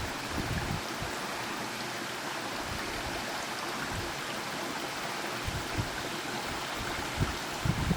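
Steady rush of flowing stream water, with a few soft low thumps in the last few seconds.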